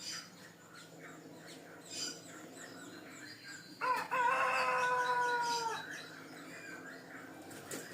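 A rooster crowing once, a single call of about two seconds that starts about four seconds in and tails off slightly in pitch, over small birds chirping.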